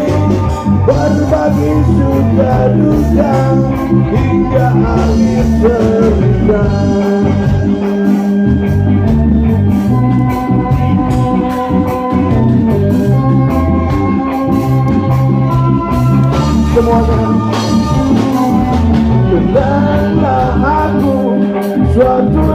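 Live band music with singing over a steady beat.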